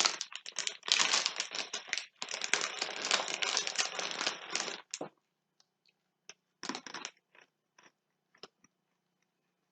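Crinkly plastic snack packet of pretzel sticks being handled and opened for about five seconds, then scattered quieter crunches and crackles as the crunchy pretzel sticks are bitten and chewed.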